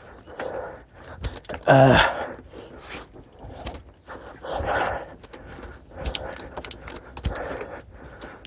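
A mountain biker breathing hard while the bike rattles and clicks over a bumpy, rocky trail. About two seconds in there is one loud, short groan that falls in pitch.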